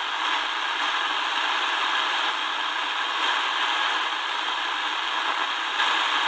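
Shortwave static from a Tecsun DR-920C portable radio's speaker as it is tuned up through the 25-metre band between stations: a steady hiss, a little louder near the end.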